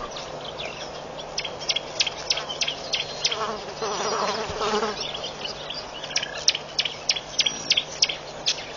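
Insects outdoors: a buzzing like a fly passing swells from about three seconds in and fades near five seconds, over a steady run of short, sharp, irregular high clicks.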